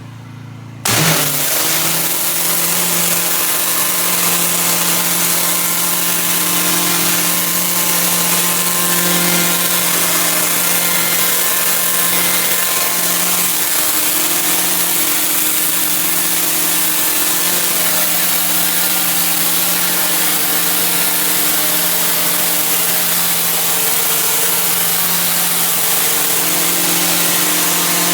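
Pressure washer spraying: the high-pressure water jet hisses steadily over the even drone of the washer's engine under load. The spray starts abruptly about a second in and runs on unbroken.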